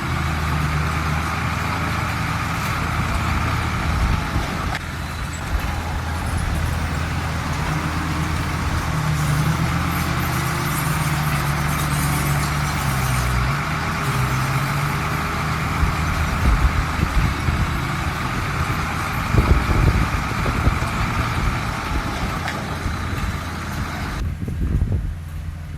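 Heavy diesel earthmoving machinery running steadily under load, with its engine note rising and falling about halfway through and irregular clanks and knocks later on. Near the end the higher sounds drop away suddenly.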